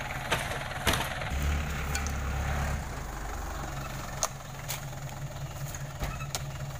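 Truck engine idling with a steady low hum, with several sharp knocks as heavy oil palm fruit bunches are spiked and heaved up into the truck's wooden cargo bed, the loudest about a second in.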